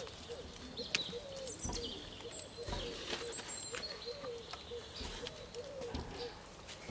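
Birds chirping repeatedly in short calls, with a few soft taps as the bottom of a plastic bottle is pressed onto paper.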